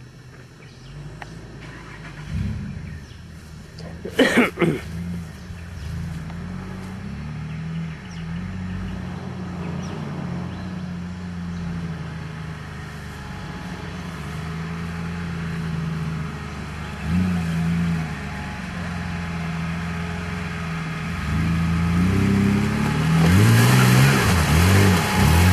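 Four-wheel-drive engine running and revving unevenly as it crawls along a muddy bush track, with a sharp, loud burst of noise about four seconds in. Near the end it grows louder as it comes closer, with the revs rising and falling over a rising hiss.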